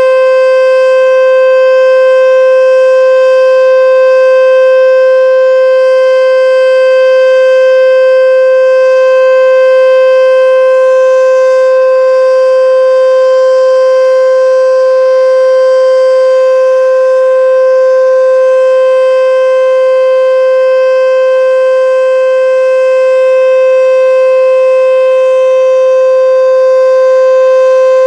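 H.O.R. Super Sirex outdoor warning siren sounding the Full Alert signal in a test: one loud steady tone at a fixed pitch, rich in overtones, single-tone rather than dual-tone.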